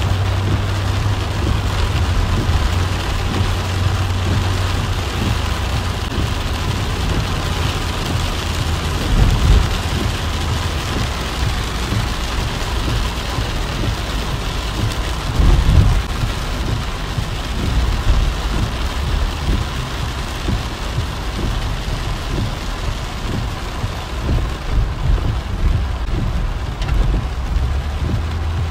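Heavy rain drumming on a moving car, heard from inside the cabin over a steady low drone of the car in motion. Two short, louder low thumps come about nine and sixteen seconds in.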